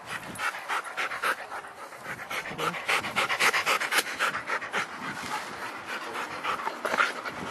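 A dog panting rapidly close to the microphone, several quick breaths a second, loudest in the middle.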